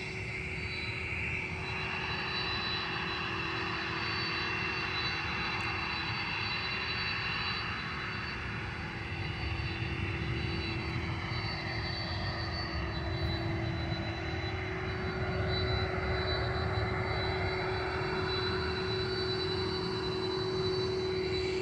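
Airplane engines running steadily: an even rushing noise with a low hum and a high whine held throughout, swelling slightly in the middle.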